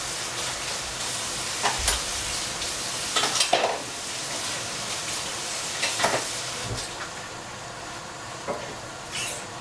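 Food sizzling in a frying pan, a steady hiss, with a few knocks and scrapes of a utensil against the pan.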